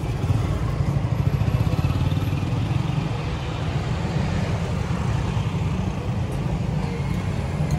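Steady low rumble of road traffic with motor vehicles running.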